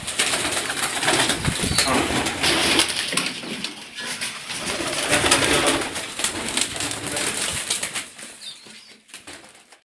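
Domestic pigeons cooing in a loft, with short clicks and scuffles throughout; the sound fades out near the end.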